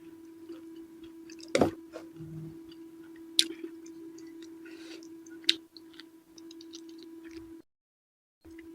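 Close-miked eating sounds of purple eggplant with sambal: chewing with scattered wet mouth clicks and three louder sharp smacks, over a steady low hum. The sound drops out completely for a moment near the end.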